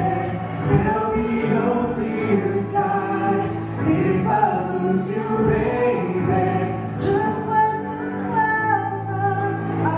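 A cappella vocal group of men's and women's voices singing in harmony, several sustained parts moving together under the melody.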